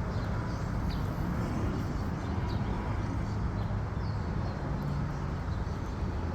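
Outdoor background: a steady low rumble with faint, scattered short bird chirps.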